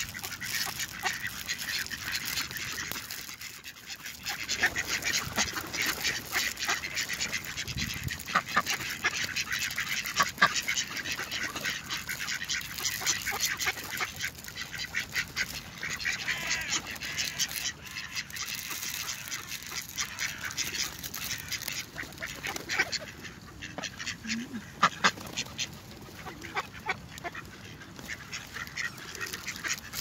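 A flock of ducks, mallards and a white domestic duck, quacking, many short calls overlapping almost without a break and easing off briefly around three seconds in.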